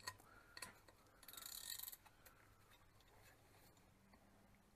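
Faint ratcheting of a quarter-inch click-type torque wrench tightening nuts on an oil cooler's studs: a few light ticks, then one short rasping burst about a second in, and otherwise near silence.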